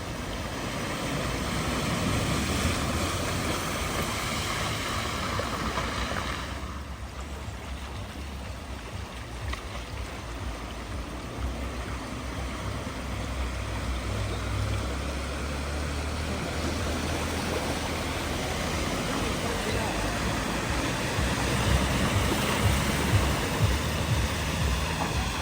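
Floodwater rushing across a ford, with a vehicle's engine running at low revs as it wades through. The rush of water drops off abruptly about six seconds in, then builds again.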